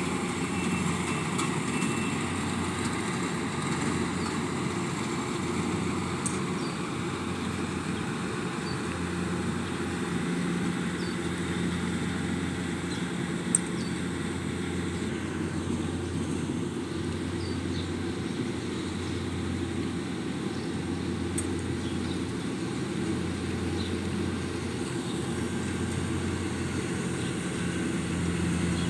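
Kubota DC-60 combine harvester's diesel engine running steadily under load as it cuts and threshes rice, with a single sharp click about halfway through.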